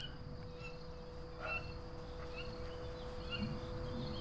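Outdoor countryside ambience: insects buzzing steadily, with short high chirps every half second to a second over a low rumble.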